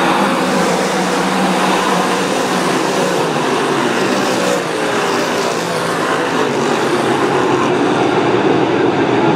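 A pack of dirt-track modified race cars racing together: a loud, steady wall of engine noise, many engine pitches overlapping and shifting as the field goes by.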